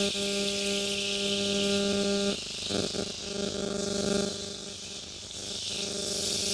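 Butter sizzling on a hot nonstick tawa, with a steady electrical hum that drops out a little over two seconds in. A few soft knocks follow as a bread sandwich is set down in the butter, and the sizzling carries on.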